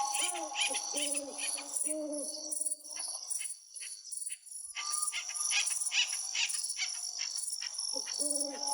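Forest birds calling. A low cooing call repeats about twice a second for the first couple of seconds and again near the end. In between come high chirps and whistles over a steady high-pitched buzz.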